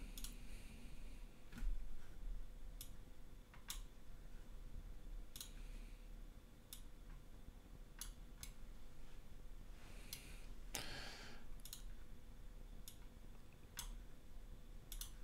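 Computer mouse clicking: about a dozen short, sharp single clicks at irregular intervals, quiet, over a faint steady hum. A brief soft noise comes about eleven seconds in.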